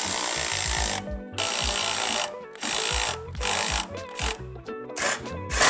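A ratchet on a long extension working in several short spells with gaps between, tightening the T-bolt clamps on the charge pipe couplers. Background music with a steady beat plays underneath.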